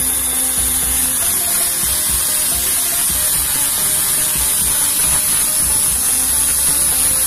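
Handheld angle grinder running with an abrasive disc pressed against a stainless steel railing tube, grinding down a weld joint: a steady high whine with the disc scraping on the steel.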